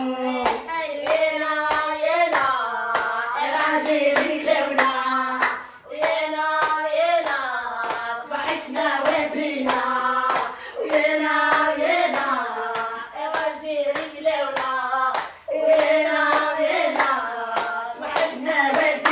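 A woman singing a song in a wavering, ornamented line, with a steady rhythm of hand claps from others clapping along.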